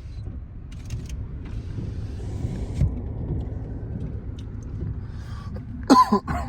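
Steady low rumble of a car driving, heard from inside the cabin, with a hiss for about a second starting a second and a half in.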